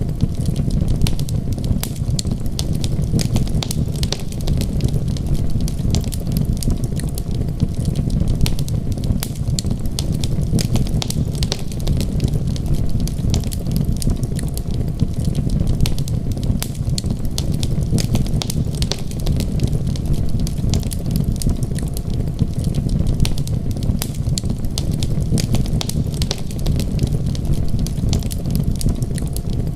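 Wood fire crackling, with many quick sharp pops scattered at random over a steady low rumble.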